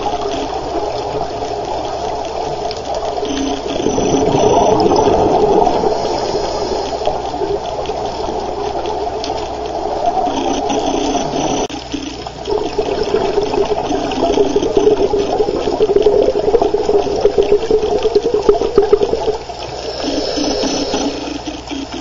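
Scuba diver's regulator underwater: exhaled bubbles rushing and gurgling in long, loud stretches, with quieter gaps between breaths.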